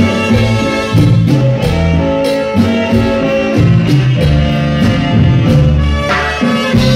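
A live danzón orchestra playing, with a trumpet close by over hand drums, saxophone and a steady low bass line.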